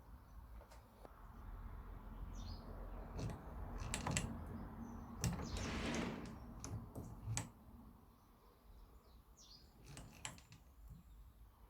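Faint scattered clicks and taps, like small objects being handled on a workbench, with a short rustling scrape about six seconds in. Faint bird chirps come in twice.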